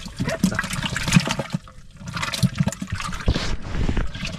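Water sloshing and splashing in a cut-open plastic jerry can as it is handled, with irregular knocks and splashes.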